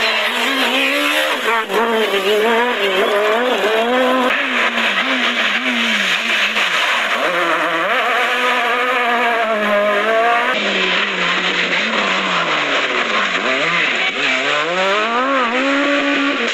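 Rally cars' high-revving four-cylinder engines, Peugeot 306 Maxi kit car and Renault Clio Super 1600, driven hard. The pitch climbs and drops again and again through gear changes and lifts. The sound jumps abruptly twice as one car gives way to another.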